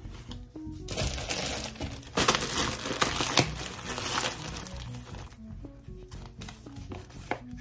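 Plastic packaging crinkling and rustling for a few seconds as the next skeins of yarn are pulled out, over light background music.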